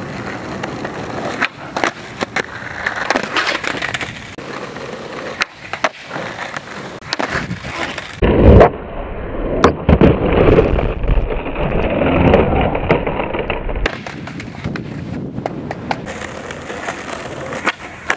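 Skateboard wheels rolling on a rough concrete street, with repeated sharp pops and clacks of the board during flatground flip tricks; the loudest knock comes about eight seconds in.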